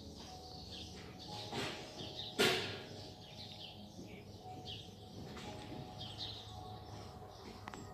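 Small birds chirping in short, repeated calls over a faint steady hum, with one sharp, loud knock about two and a half seconds in.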